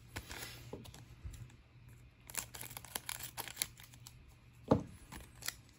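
A paper promo card-pack wrapper being handled and cut open with scissors: light crinkling, then a quick run of small clicks a couple of seconds in, and one louder knock near the end.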